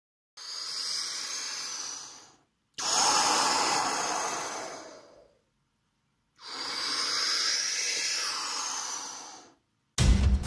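A person breathing slowly: three long, hissy breaths, each about two to three seconds, with short silences between them. Music with a heavy beat cuts in suddenly at the very end.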